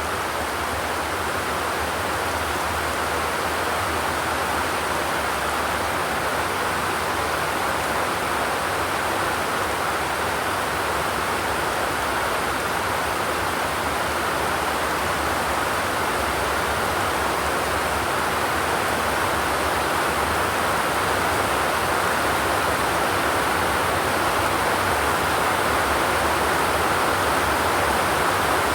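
Steady rain falling, a continuous even hiss without thunder.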